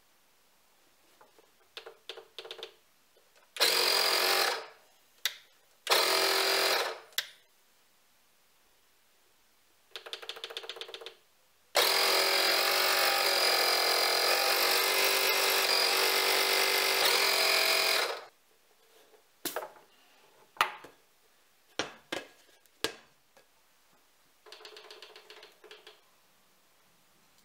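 HYCHIKA 18V cordless tyre inflator's small piston compressor running with a rattling buzz. It runs in several short bursts, then once steadily for about six seconds, with sharp clicks in the pauses between runs.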